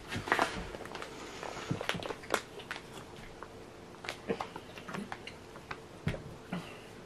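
Foil freeze-dried meal pouch crinkling as it is handled, with a metal spoon scraping and clicking inside it while food is scooped out: a string of scattered small clicks and rustles, loudest in the first half-second.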